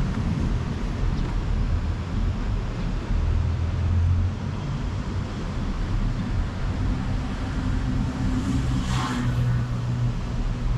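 Road traffic on a city street: a steady low rumble of passing cars, with a brief hiss about nine seconds in.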